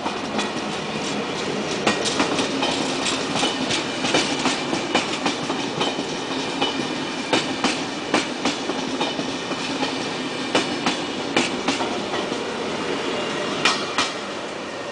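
A double-deck electric regional passenger train passing close by: a steady rumble of wheels on rail broken by many sharp clicks as the wheels cross rail joints, with a last loud click near the end as the locomotive goes by.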